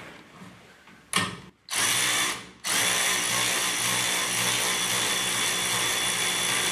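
Cordless electric ratchet running the lower mounting bolt of a rear coilover damper in: two short bursts, then one steady run of about four seconds.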